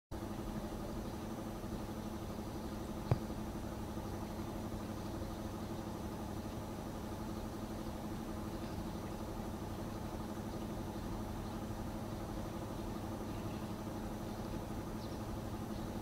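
Steady low machine hum, with a single sharp click about three seconds in.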